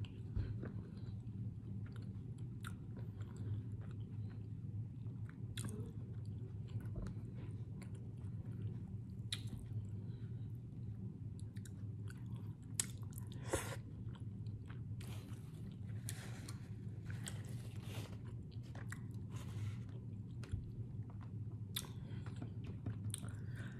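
Close-up chewing of red potatoes in sauce, with many small scattered mouth clicks over a steady low hum.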